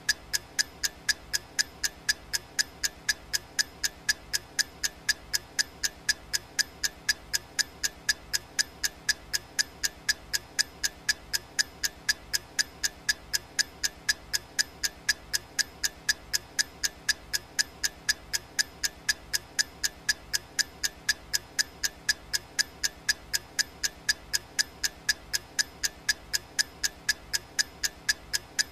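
Clock ticking sound effect: crisp, evenly spaced ticks, several a second, in a steady unbroken rhythm.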